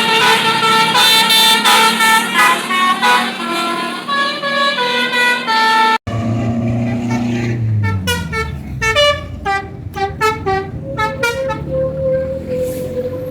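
Telolet multi-tone bus horn (basuri type) playing a melody of stepped notes. It breaks off about six seconds in, then comes back as a run of quick short notes over a bus engine's low running, ending in a long held note.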